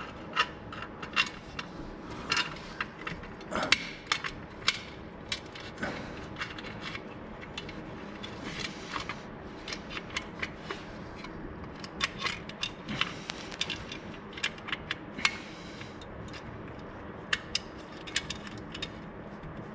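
Metal clamp hardware being handled and fitted by hand: irregular sharp clicks and clinks, one every half second or so, some louder than others.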